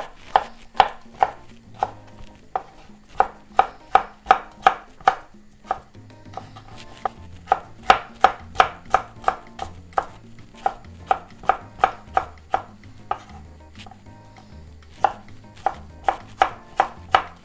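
Chef's knife slicing a red bell pepper into strips on a plastic cutting board: quick, even knife strikes about three a second, in runs with short pauses between them.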